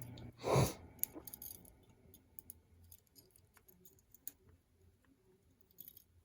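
A short noisy exhale close to the microphone about half a second in, then scattered faint clicks as the small pins from a gutted ASSA 700 lock are handled and laid out.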